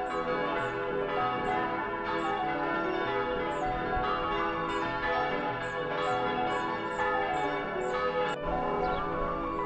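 Bells ringing: a dense peal of many overlapping ringing tones, with a brief dropout a little past eight seconds in.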